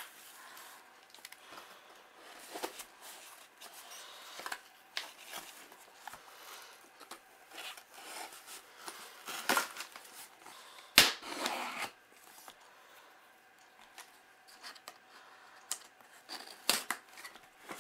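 A cardboard shipping box being opened with a box cutter: the tape is slit and the cardboard handled, with scattered scrapes and clicks. The loudest is a sharp knock about eleven seconds in.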